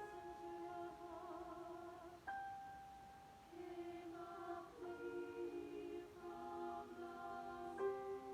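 Chamber choir singing quietly in held chords that shift to new chords every second or two.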